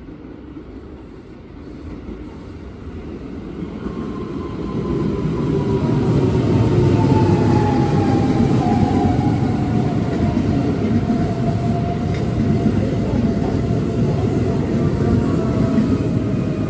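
Keihan 13000-series electric train pulling into the station. Its running rumble builds over the first few seconds and then holds steady, under a motor whine that falls in pitch as the train brakes.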